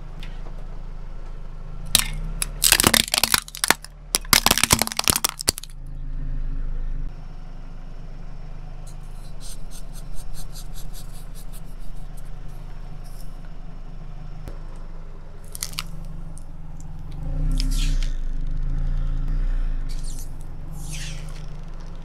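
Car tyre rolling over a toy telescope tube on concrete, which cracks and crunches in a dense run of sharp snaps for about three and a half seconds, starting about two seconds in, over the steady low hum of the car's engine. Lighter crackles and ticks follow later as a cellophane-wrapped toy is handled.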